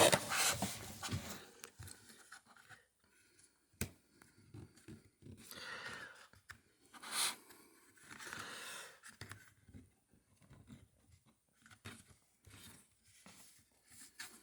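Faint handling noises of an airsoft gas blowback rifle being looked over: scattered rustles and small clicks, with one sharp click about four seconds in.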